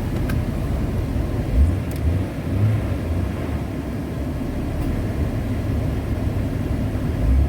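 Jeep Cherokee XJ's 4.0-litre straight-six idling steadily with the AC on, its idle air control valve and throttle body freshly cleaned: the rough, fluctuating idle is cured. A few brief low bumps sound over the steady idle.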